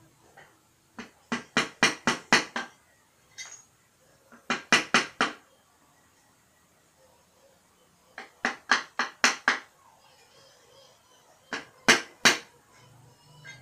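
Hammer tapping on a motorcycle engine's metal casing, in four bursts of quick sharp strikes, about four or five a second, working the crankcase halves of a Yamaha Lagenda 115 Fi engine apart.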